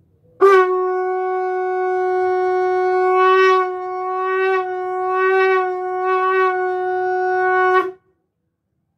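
Conch shell (shankha) blown in one long held note of about seven seconds, rich in overtones, swelling slightly in loudness midway and cut off sharply near the end.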